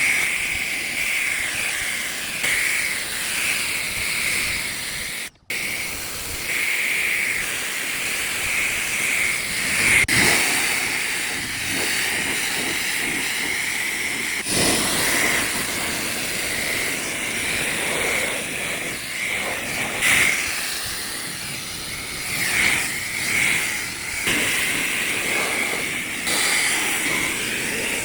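Ryobi 1.8 GPM pressure washer spraying: a steady hiss of the water jet blasting the grimy RV siding, shifting in tone every few seconds as the jet moves. The sound briefly cuts out about five seconds in.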